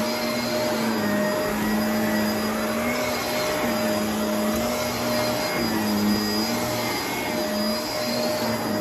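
Shark upright vacuum cleaner running steadily on carpet, a constant motor whine whose low hum dips slightly in pitch and recovers every second or two as it is pushed back and forth.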